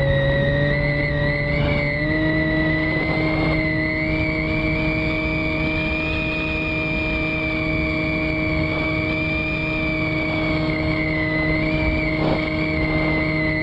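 Electric motor and propeller of a Skywalker model plane running steadily in flight, a constant whine over wind noise on the onboard camera. Its pitch steps up slightly about two seconds in.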